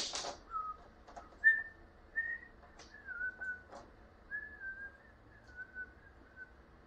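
A person whistling a wandering tune in short phrases, one note at a time sliding up and down. A sharp click at the start and a few lighter taps come from handling the corner trim against the camper's aluminium skin.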